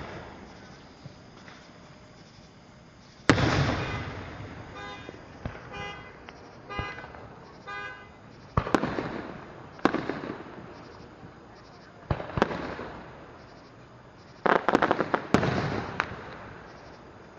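Aerial fireworks shells bursting overhead: sharp booms that ring out and fade, a big one about three seconds in, several more spread through, and a quick cluster of bangs near the end. Between the first booms comes a run of short pitched toots, about one a second.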